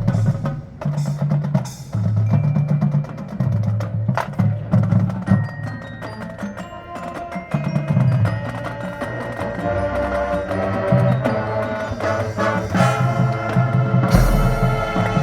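A marching band's percussion section playing: rapid wood-block clicks and drum hits over low drum notes, with pitched mallet keyboards and chimes sounding sustained notes that build from about halfway through. About fourteen seconds in there is a loud, full hit.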